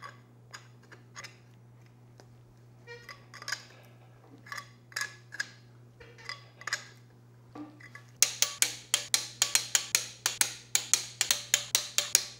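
Socket wrench ratchet clicking as it runs the main bearing cap bolts down on an engine block: scattered clicks at first, then from about eight seconds in a fast, even run of about five clicks a second.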